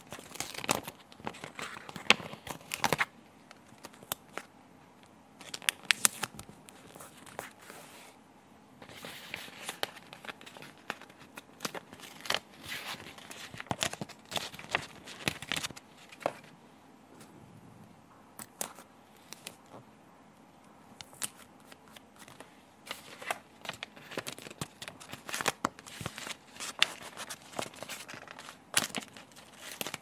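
Stickers being peeled off a glossy backing sheet, the sheet crinkling and crackling as it is handled. The sound comes in irregular bursts of sharp crackles and clicks with short quiet pauses between them.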